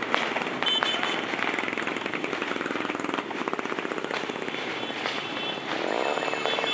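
Many small motorcycle and scooter engines running and revving together as a column of bikes rides past, a dense rattling mix of exhausts. A short high beeping sounds about a second in, and a steady high tone comes in near the end.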